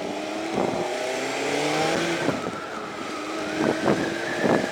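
Yamaha XJ600's air-cooled inline-four engine accelerating under way, its note climbing and then dropping a little after two seconds in. A few thumps of wind on the microphone near the end.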